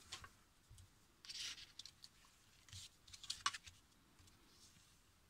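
Faint rustling and scraping of white cardstock being handled and creased with a bone folder, in a few short strokes with a sharper click about three and a half seconds in.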